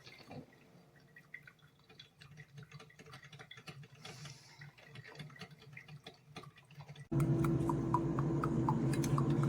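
Drops of coffee dripping and plinking from the Hamilton Beach drip coffee maker, the leak the owner complains of. For about seven seconds there are only faint scattered ticks. Then a steady hum sets in abruptly, with short pitched drip plinks about three times a second.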